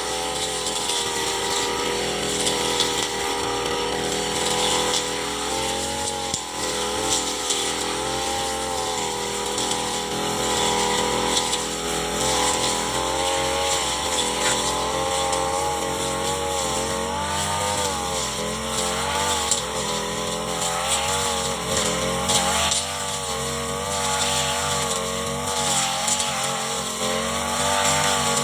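Petrol brush cutter engine running at high speed while cutting grass, its pitch wavering and dipping as the throttle and the cutting load change.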